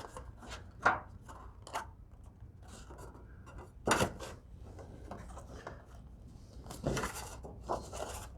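Tin snips cutting metal step flashing: several short, separate snips, the loudest about four seconds in.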